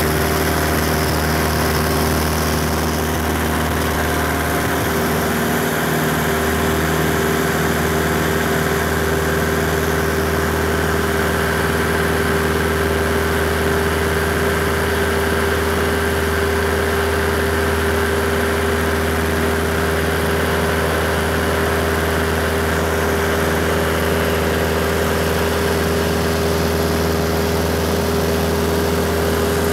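Robin Aiglon light aircraft's 180 hp four-cylinder piston engine and propeller running steadily at takeoff power, heard from inside the cockpit as a constant drone through the takeoff roll and climb-out.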